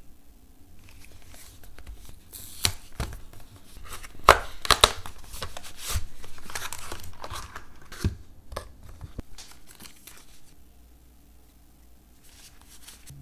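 Handling of a cardboard screen-protector box and its clear plastic tray: sharp clicks and taps, with the loudest a few seconds in, and rustling and crinkling as the tray slides out of the sleeve. It goes quieter later, with a few light taps near the end.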